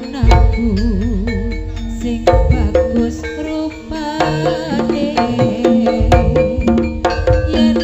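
Javanese gamelan dance music: hand-played kendang drums beating a lively rhythm under ringing metallophone notes, with a wavering melody line over them.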